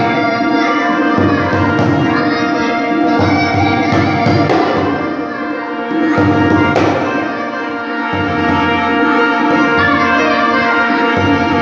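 Marwari folk song music: sustained instrument tones with drum beats.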